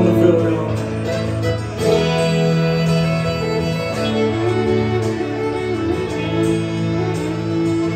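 Fiddle playing a melody over a strummed acoustic guitar in a live country band, with no singing.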